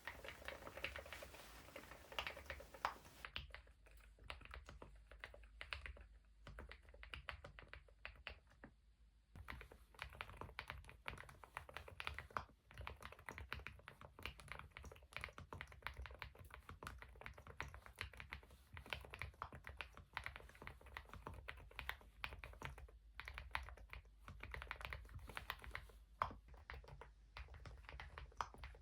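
Continuous typing on a Galaxy80 mechanical keyboard fitted with Epomaker Nude Rosa silent switches and MDA-profile keycaps: a quiet, rapid patter of damped keystrokes.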